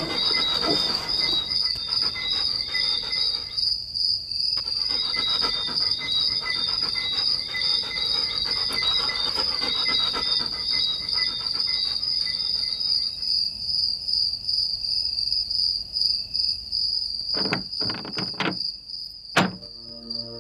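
A steady, high chorus of night insects chirping, like crickets. Near the end come a few sharp knocks, the loudest about 19 seconds in.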